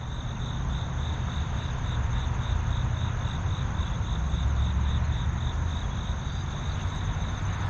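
Outdoor ambience: a steady low rumble, with a continuous high-pitched insect trill pulsing about four times a second.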